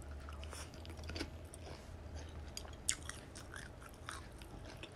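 Quiet chewing and small mouth clicks from a mouthful of fish and greens from a bowl of fish noodle soup, with one sharper click about three seconds in, over a low steady hum.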